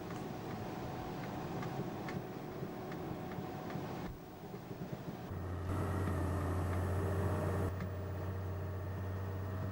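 Lorry engine and road noise heard from inside the cab while driving. About halfway through, the sound changes to a steadier, louder low drone.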